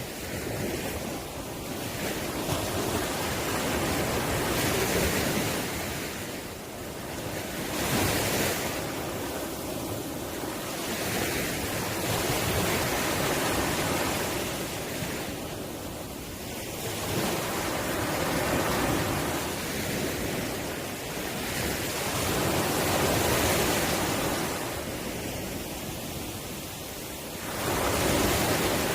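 Ocean waves breaking on the shore, the surf swelling and falling back every few seconds with a louder surge near the end.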